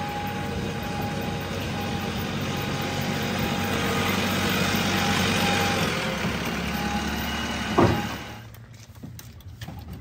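JCB 3DX backhoe loader's diesel engine running steadily as the machine moves, with a steady whine over it. Just before 8 seconds there is a brief loud sound, and then the engine noise gives way to quieter scattered clicks.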